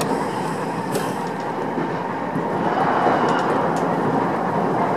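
Odakyu 1000 series electric train running at speed, heard from inside the front car: steady wheel-and-track rumble with a few faint clicks from the rails. The noise grows a little louder past the middle as the train runs onto a steel truss bridge.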